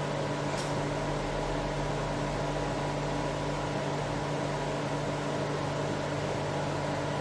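Charnwood W821 midi woodturning lathe running at a steady speed: an even electric motor hum with a few held tones over a whirring hiss.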